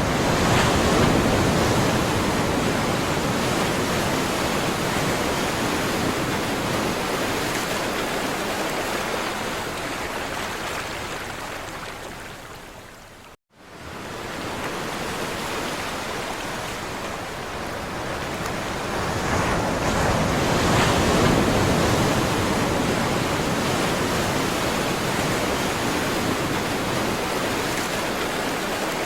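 Surf washing on a shore: a continuous rush of sea waves that swells and ebbs slowly, swelling strongly about a second in and again about two-thirds of the way through. About halfway through, the sound fades down and cuts out for a split second, then comes straight back.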